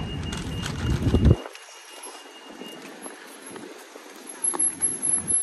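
Street noise while walking in a town centre. A loud low rumble cuts off sharply about a second and a half in, followed by quieter traffic hum and a few knocks near the end.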